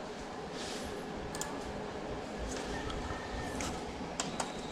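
A few scattered clicks from a computer keyboard and mouse over steady room noise.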